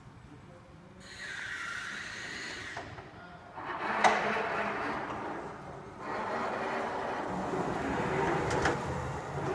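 Battery-electric BT reach truck manoeuvring with a loaded pallet: its motors and hydraulics whine, with a sharp clunk about four seconds in and a steadier running sound from about six seconds on.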